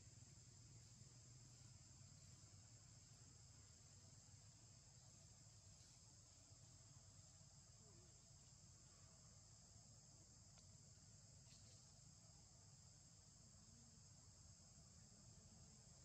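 Faint, steady, high-pitched insect chorus that runs on without a break.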